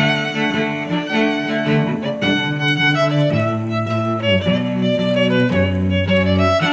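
Background music on bowed strings: sustained notes over a low line that steps from note to note every second or so.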